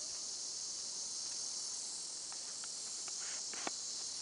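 Steady high-pitched drone of insects, with a few faint ticks in the second half.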